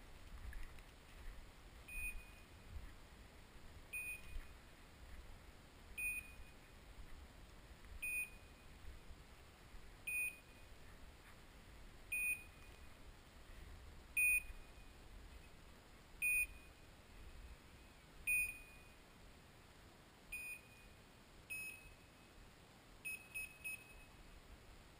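Dog's beeper collar in point mode, giving one short high beep about every two seconds, then three or four quicker beeps near the end. It is the signal that the pointing dog is standing still on point, holding a woodcock.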